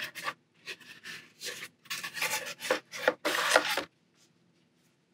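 Painting board with watercolour paper scraping and sliding across a tabletop as it is turned around, in several rubbing strokes, the last and loudest one ending about four seconds in.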